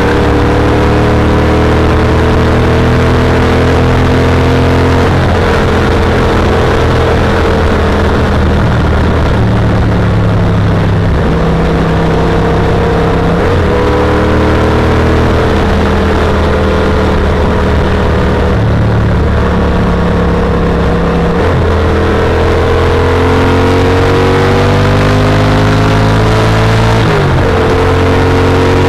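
Yamaha TRX850's 849 cc parallel-twin engine pulling under load, heard from onboard the motorcycle with wind rush over it. The engine note climbs slowly and dips briefly a few times.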